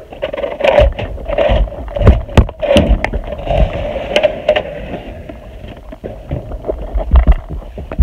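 Wooden rabbit nest box being pulled out of a wooden hutch: wood scraping and knocking against the hutch, with repeated sharp knocks.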